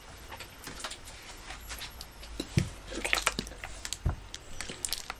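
Plastic bottles being handled and set down on a tabletop: light crinkles and clicks, with dull thumps about two and a half and four seconds in.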